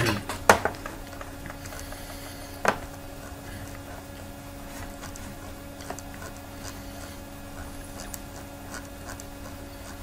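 Steady low background hum of the recording, with a few sharp clicks: one about half a second in and another a little under three seconds in.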